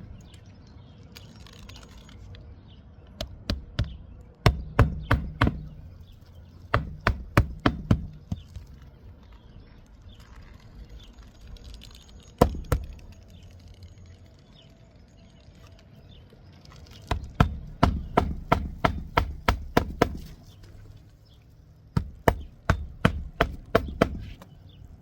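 Hammer driving nails into roof shingles: several quick runs of sharp strikes at about four or five a second, with pauses between the runs and one single blow near the middle.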